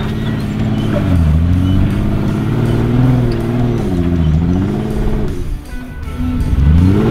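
Off-road Jeep Wrangler engine revving on the trail, its pitch dropping and climbing again three times as the throttle is let off and reapplied: about a second in, about four seconds in, and near the end. Music plays along with it.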